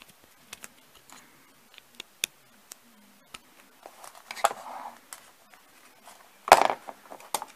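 Small ticks and scrapes of a thin screwdriver turning the screws of a plastic screw terminal block to clamp wires onto an LED's legs. Midway there is a rustle of handling, and about two-thirds of the way through a louder knock and rustle as the block and wires are handled.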